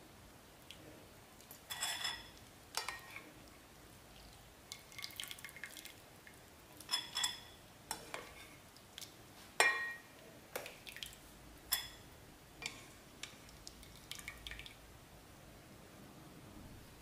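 Metal chopsticks clinking against a ceramic bowl while boiled noodles are lifted in, with wet drips between. The clinks are short, scattered and ringing, and come about a dozen times.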